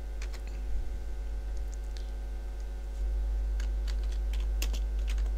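Computer keyboard keystrokes and a few clicks, irregular and scattered, busiest in the second half, over a steady electrical hum.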